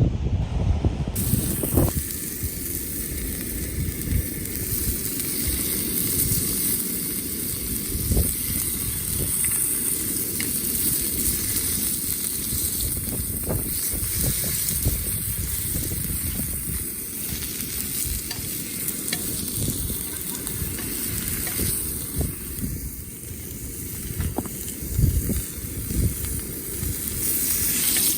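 Wind buffeting the microphone in gusts under a steady high hiss.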